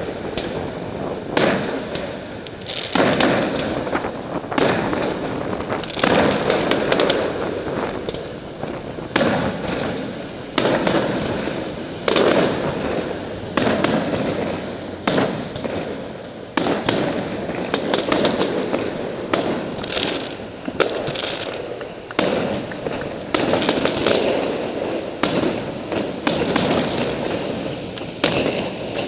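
Aerial firework shells bursting one after another, a bang about every one to two seconds, each fading out over a second or so.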